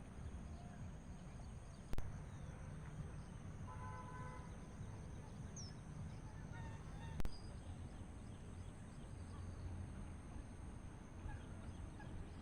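Faint rural ambience with a short call from a domestic fowl about four seconds in and a small bird chirping briefly, over a steady low rumble. Two sharp clicks, one about two seconds in and one about seven seconds in.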